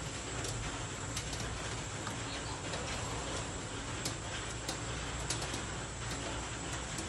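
Pot of chicken hearts, livers and gizzards boiling in water: a steady bubbling hiss with scattered small pops, as the scum foams up in the parboil.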